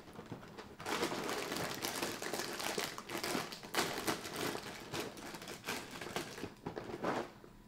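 Plastic liner bag inside a cereal box crinkling and crackling as it is pulled open. The crackling begins about a second in and runs as a dense, uneven stream of crinkles until it stops near the end.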